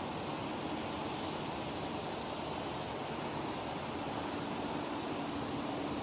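Steady, even rushing noise with a faint low hum running under it, unchanging throughout; no bird calls or other distinct sounds stand out.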